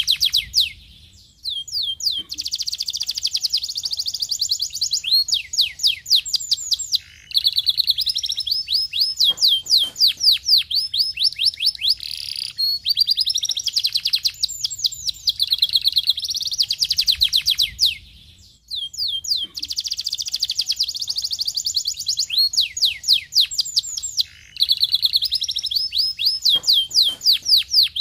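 A domestic canary singing a long, fast song of rolling trills and runs of rapidly repeated falling notes, broken by a few short pauses between phrases.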